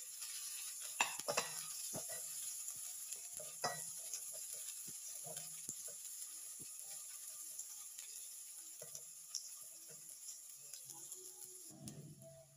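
Sliced onions sizzling in hot oil in a pot while a silicone spatula stirs them, with a few sharp knocks of the spatula against the pot about a second in and again near four seconds. The sizzle eases off toward the end.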